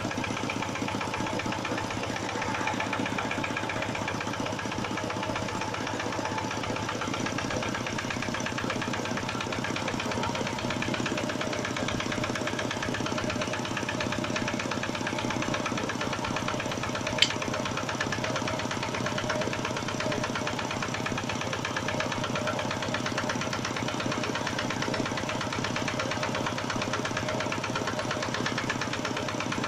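Diesel engine of a generator set, started by hand crank, running steadily with a fast even beat. A single sharp click comes about seventeen seconds in.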